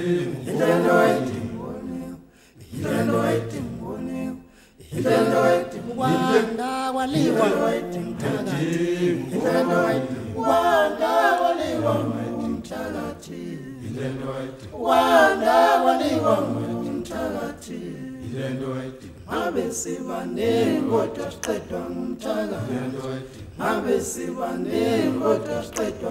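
Unaccompanied choir singing a Zulu song in harmony, with a low voice line under the melody and two short breaks in the first five seconds.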